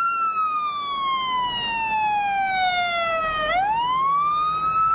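Fire engine siren wailing: its pitch falls slowly for about three and a half seconds, then rises quickly back up near the end.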